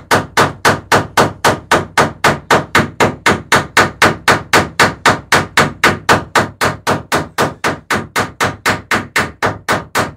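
Hammer peening over a rivet in a dory's lapstrake planking: a rapid, steady run of sharp metal strikes, about four a second.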